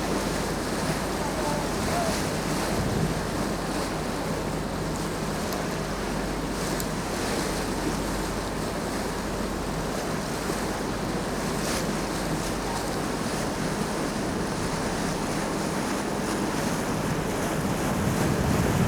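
Steady wind buffeting the microphone over the rushing of water alongside a tour boat's hull, with a faint low hum underneath.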